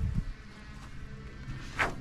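A low thud or two as scrap items are handled, over a faint low rumble, with a short sharper knock near the end.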